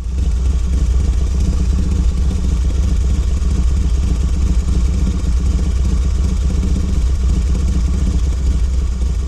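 A loud, steady low mechanical rumble, like a running motor.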